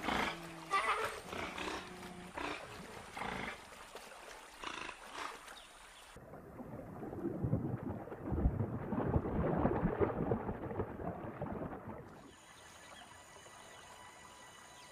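Giant otters giving harsh snorting and growling calls over the first few seconds. Then, from about six seconds in, a muffled underwater churn of water and bubbles as an otter swims. Near the end this gives way to quieter steady tones.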